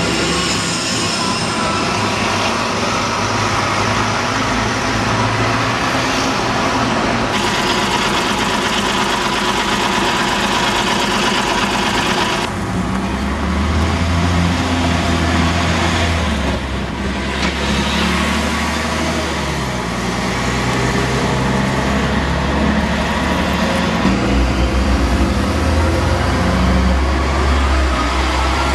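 City street traffic with buses passing close by. The sound changes abruptly twice, at about seven and twelve seconds in, and from then on a heavy bus engine runs close by with a strong low hum.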